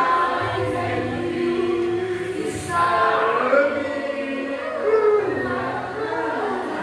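Gospel song sung by voices with sustained, gliding notes over a steady low accompaniment.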